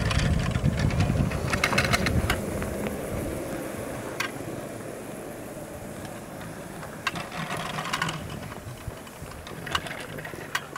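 A ski surface lift running, heard from its hanger: the haul rope passes through the tower sheave assemblies with bursts of rapid rattling clicks over a steady low rumble that is loudest in the first few seconds.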